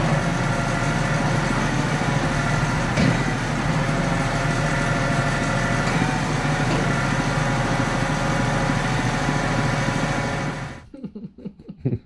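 Compact track loader's diesel engine running steadily in a shop, with a faint click about 3 s in and again about 6 s in. The engine sound cuts off abruptly about 11 seconds in, leaving only faint, scattered small sounds.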